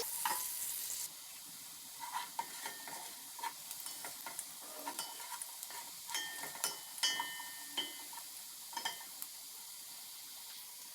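Chopped onions sizzling in hot oil in a pan, being stirred, with repeated short scrapes and clicks of the utensil against the pan. The sizzle is loudest for about the first second, then softer.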